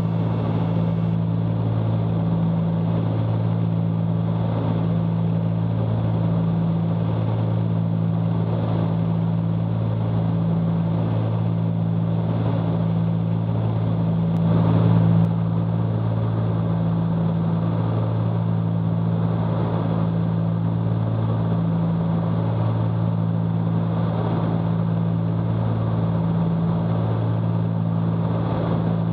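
Cessna 310Q's twin six-cylinder Continental piston engines and propellers droning steadily in cruise, with a slow, regular throb rising and falling every couple of seconds.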